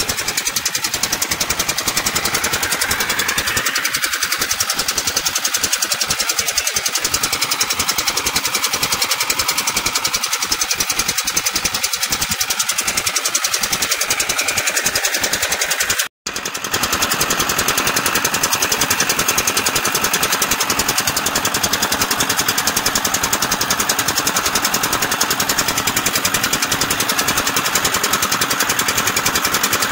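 Boat engine running steadily, a fast, even beat of strokes. The sound drops out briefly about 16 seconds in.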